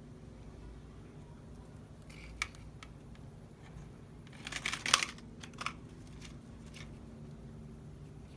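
Plastic toy vehicles being handled: a light click, then a short burst of clicking and clattering about five seconds in, with a couple of softer clicks after, over a low steady hum.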